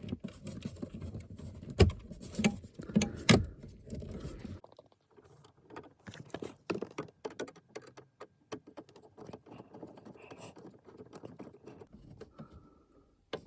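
Hands refitting plastic interior trim in a car's passenger footwell: a run of clicks, taps and knocks, with two louder knocks in the first few seconds, then lighter scattered clicks.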